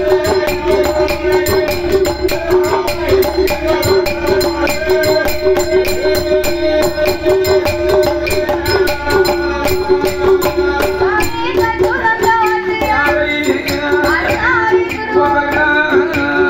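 A villupattu bow-song ensemble playing: fast, dense jingling and clicking percussion from the bow's bells, the clay pot drum and small hand cymbals over a steady held tone. A singing voice comes in during the last few seconds.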